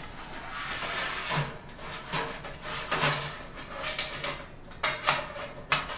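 Stainless-steel malt pipe sliding and scraping against the inside of the Robobrew kettle as it is lowered in and lined up, with several short metal knocks as it fails to seat.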